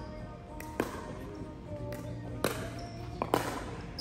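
Sharp hits of a ball in a doubles rally: a few separate cracks about a second or more apart, two of them close together near the end, over faint background music.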